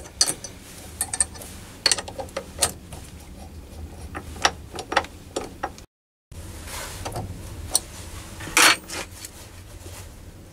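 Scattered metallic clicks and taps from a mini lathe's toolpost being adjusted with a T-handle key as the grooving tool is lowered to centre height, over a low steady hum. There is a brief cut to silence a little past the middle.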